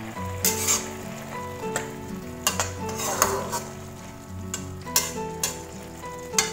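A slotted stainless-steel spatula stirring green beans and tomatoes in a sizzling spice sauce, scraping and clacking irregularly against the wok.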